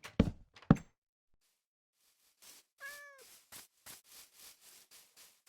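Two sharp knocks in the first second, then a single short, high animal call about three seconds in, over faint, evenly spaced ticks at roughly three a second.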